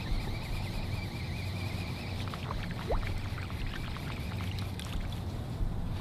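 Casting with a Shimano Conquest baitcasting reel: the spool whines with a wavering pitch for about two and a half seconds as the line pays out, then a few faint ticks follow. A steady low hum runs underneath.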